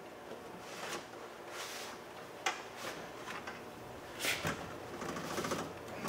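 Truck door window glass being slid up and pressed into its rubber run channel: faint rubbing and scraping, with a few light knocks of glass against the door frame.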